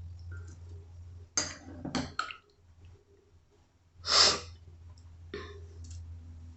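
Kitchen utensils and containers being handled while banana peppers are measured out: a few light clicks and scrapes, then one short rush of noise about four seconds in, over a low steady hum.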